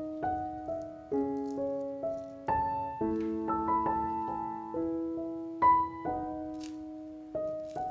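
Background piano music: a gentle melody of struck notes and soft chords, each note dying away.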